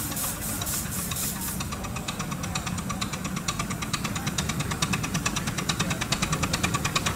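7¼ inch gauge miniature saddle-tank steam locomotive hauling a passenger train, its exhaust beating in a fast, even rhythm with the wheels ticking over the track, growing louder as it draws near.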